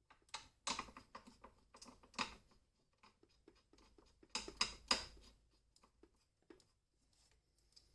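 Irregular small metallic clicks and scrapes of a nut and hand tool being worked onto a battery hold-down bracket, with a few sharper clicks about two seconds in and again near the middle.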